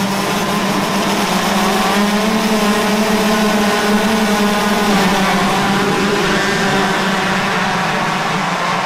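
125cc motocross bike engines running at high revs, one holding a steady high-pitched note while other engines rise and fall in pitch around it.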